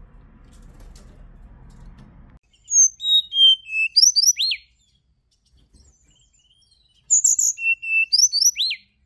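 Hill blue flycatcher (Cyornis whitei) singing. It gives two clear whistled phrases, the first about a third of the way in and the second near the end. Each is a run of high notes stepping down in pitch, ending in quick sharp downward sweeps. A faint low hum fills the first couple of seconds.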